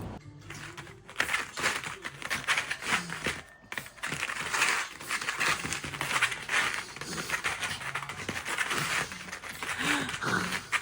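Dog panting rapidly and steadily, close by.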